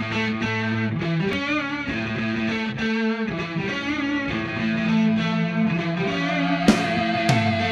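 Background rock music led by guitar, with held notes that waver in pitch.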